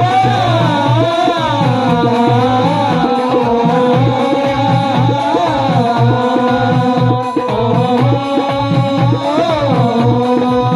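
Instrumental break in live Haryanvi folk devotional music: a melodic lead plays a line of sliding, bending notes over a steady hand-drum rhythm.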